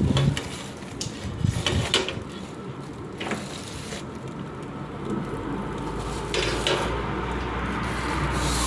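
A few sharp knocks and clatters from handling on a barbecue grill, over a faint noisy background, with a low rumble building in the second half.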